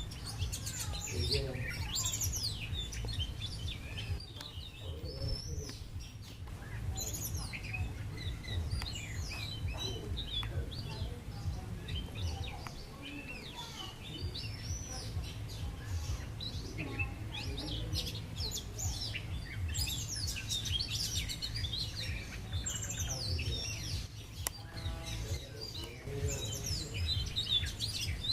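Small birds chirping and calling, with many short, quick notes overlapping one another, over a steady low rumble.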